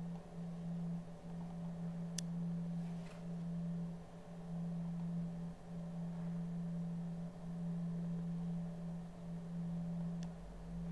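A steady low hum on a single pitch, with a sharp faint click about two seconds in and another near the end.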